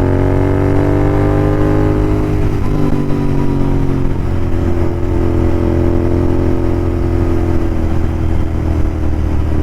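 Royal Enfield Continental GT 650's parallel-twin engine running through aftermarket Red Rooster exhausts with the dB killers removed, heard under way on the road. The engine note is loud and steady, with small shifts in pitch and a step down about two seconds in.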